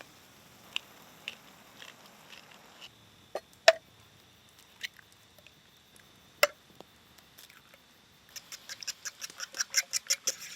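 A few scattered sharp knocks, two of them loud, then from about eight seconds in a steady run of knife chops on a cutting board, about five a second.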